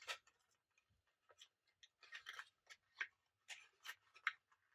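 Faint crinkling and rustling of small plastic toy baggies being handled, in short scattered bursts.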